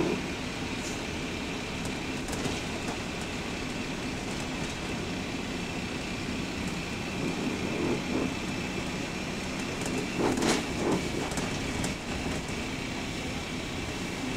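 Bus WS113's engine running as the bus drives along, heard inside the saloon, with a clicking clatter that the uploader puts down to the engine rods. Body rattles throughout, with a louder burst of knocks and rattles about ten seconds in.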